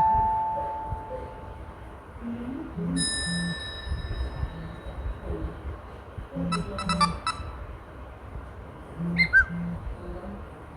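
A run of short smartphone notification tones played one after another: a chime ringing out at the start, a bell-like tone about three seconds in, a quick cluster of short tones around six to seven seconds, and a brief bird-like chirp near nine seconds. Each comes with a pair of short low buzzes.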